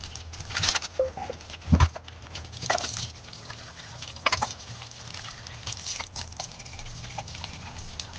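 Scattered clicks, knocks and rustles of household things being handled, with one loud thump a little under two seconds in, over a steady low hum.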